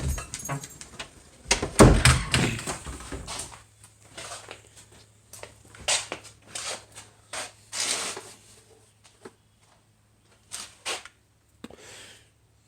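A string of irregular knocks and thumps, loudest in the first few seconds and sparser after, with a faint low steady hum starting about four seconds in.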